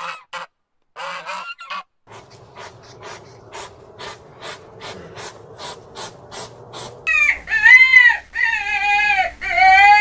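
Canada goose giving short honks, then a run of sharp ticks about twice a second. From about 7 s in come loud, drawn-out animal calls whose pitch arches up and down, the loudest sound here.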